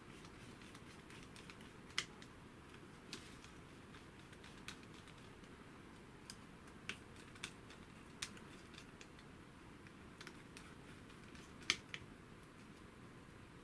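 Scattered small, sharp clicks and taps from the black FR4 fibreglass cage plates and their screws and nylon fixings being handled and fitted by hand. The loudest clicks come about two seconds in and near the end, over faint room noise.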